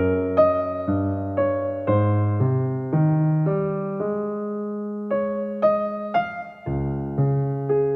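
Slow, gentle piano music: single notes struck about every half second over held bass notes, in a calm relaxation piece.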